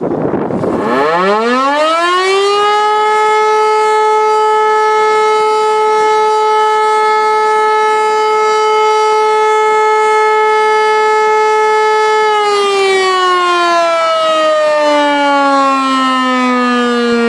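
German E57 electromechanical fire siren sounding the fire alarm signal (Feueralarm): it winds up with a rising howl, holds a steady wail for about ten seconds, then winds down with falling pitch. This is one of the 12-second tones of the alarm.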